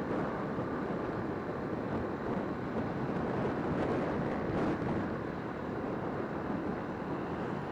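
Wind rushing over the microphone of a motorcycle riding at about 60 km/h. It is a steady rush with engine and road noise mixed in underneath.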